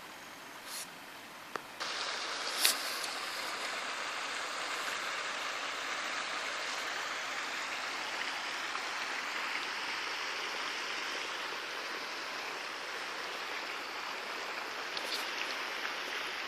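Shallow rocky creek running, a steady rushing hiss of water that gets louder about two seconds in and then holds. A few sharp clicks near the start, one of them loud, and another near the end.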